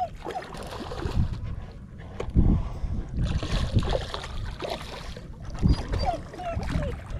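A hooked black drum splashing and thrashing at the water's surface beside the boat, with irregular low thumps; the splashing is strongest between about 3 and 5 seconds in.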